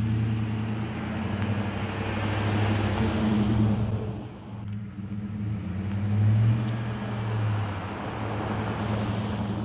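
Lifted Chevrolet Silverado pickup driving by, its engine hum and tyre noise swelling and fading as it passes. It goes by twice, with a short drop between the passes about four and a half seconds in.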